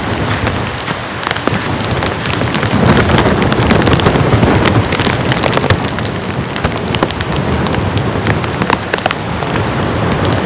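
Heavy rain falling steadily, with many individual drops landing close by as sharp taps over a dense hiss.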